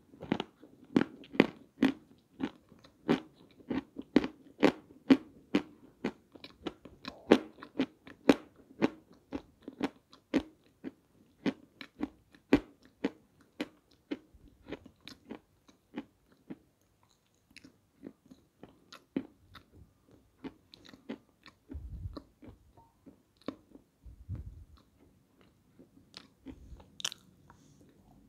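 Close-up chewing of crunchy, powdery edible clay (peschanka): quick crisp crunches about two a second, growing sparser about halfway through, with a couple of low thumps in the second half.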